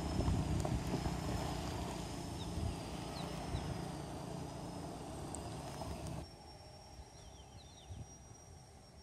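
A motor engine rumbling and slowly fading over about six seconds, then cut off abruptly, leaving a quieter outdoor background with a thin, steady high tone.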